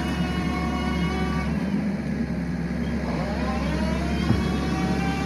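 Engine running steadily, its tones gliding in pitch for a moment about three seconds in.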